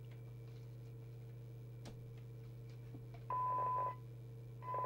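Harrier CBX FM CB radio on the bench: the speaker sits muted under a steady low hum with a few faint clicks, then about three seconds in the squelch opens twice for about half a second at a time, letting through noise with a steady 1 kHz test tone from the signal generator. The weak test signal is right at the squelch threshold, so the squelch opens and closes.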